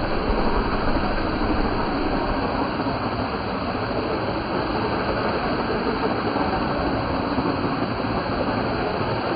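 Steady rushing water noise: an RC Baja Beetle, electric and on a two-cell battery, spinning through shallow water and throwing spray from its wheels, over the continuous rush of cascading fountain walls.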